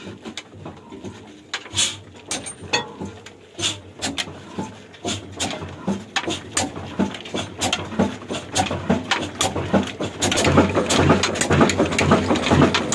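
Old Ruston Hornsby horizontal diesel engine catching after being hand-swung by its flywheel: slow, regular knocking firing beats that come faster and louder from about ten seconds in as it picks up speed.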